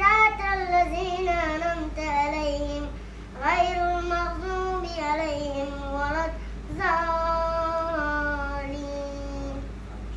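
A high, child-like voice singing a slow, melismatic melody in three long phrases, with held notes that bend and waver between them.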